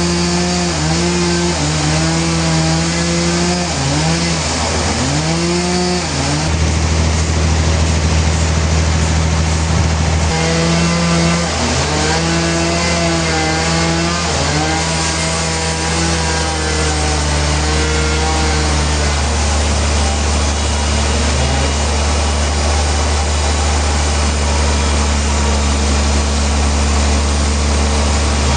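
A sawmill's motor-driven saw cutting through a large trembesi log. The motor's pitch sags and recovers several times in the first half and again around the middle as the blade meets resistance, over a steady low hum.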